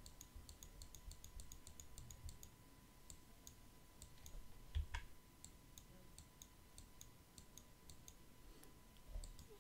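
Near silence broken by faint, scattered clicks of a computer mouse and keyboard, with a faint steady tone underneath and a soft thump about five seconds in.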